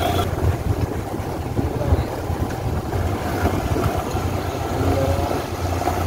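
Motorcycle engine running at steady road speed, a low, even drone, with wind buffeting the microphone on the moving bike.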